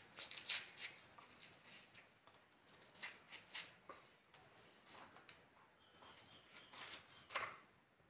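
Kitchen knife cutting watermelon, trimming the rind and slicing through the flesh: a series of short sharp cutting sounds in quick clusters.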